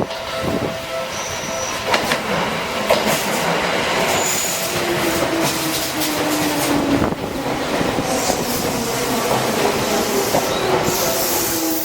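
Seibu New 101-series electric train moving through the station and slowing: wheels clicking over rail joints, a motor whine falling slowly in pitch, and short high wheel squeals.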